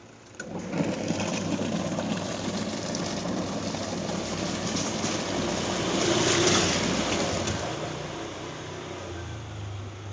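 Washing machine running: a steady motor hum under a noisy wash. It starts about half a second in, grows loudest around six seconds in, then eases off.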